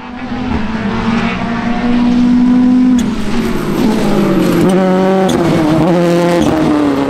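Rally car engine running hard. Its note is held fairly steady for about three seconds, then drops sharply with a crack and steps up and down between pitches for the rest of the time.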